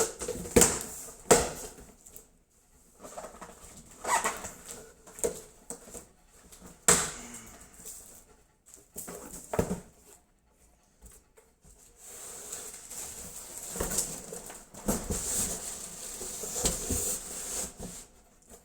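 A PC case and its packaging being handled: scattered sharp knocks and clicks, then a longer stretch of rustling from about two-thirds in.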